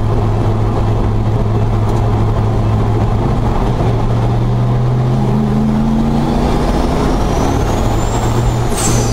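Turbocharged Ford 302 V8 in a Ranger pickup, heard from inside the cab, running steadily and then pulling harder from about four seconds in, its note climbing. A thin high whistle rises along with it over the last few seconds, and a brief burst of hiss comes near the end.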